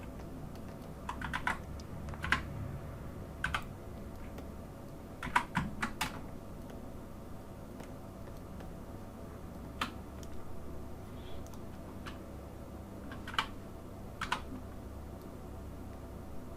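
Computer keyboard keys being pressed: scattered single strokes and quick runs of two or three, with long gaps between them, over a steady low hum.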